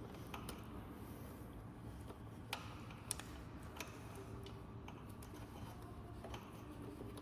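A handful of faint, irregular small clicks and taps from plastic wiring connectors being handled and plugged together on an electric bike's controller harness; the sharpest comes about three seconds in.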